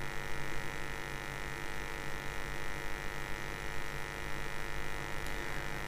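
Steady electrical mains hum with a faint high whine over it, unchanging throughout: background hum picked up by the recording setup.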